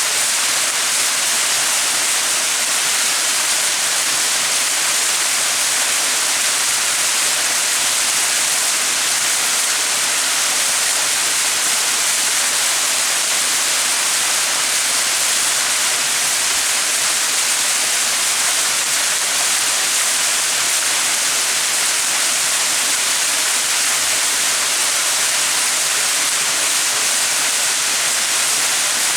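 Small mountain waterfall: water splashing and rushing in a steady, unbroken hiss.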